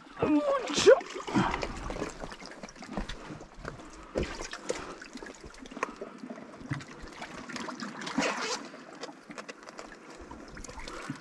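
Seawater splashing and trickling out of a mesh live-bait bag as it is hauled up from the water on a rope and set down on rock, with surges of splashing about a second in, then again around four and eight seconds.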